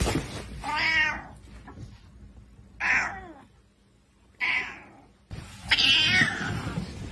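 A domestic cat giving four angry, drawn-out meows, the last one the longest.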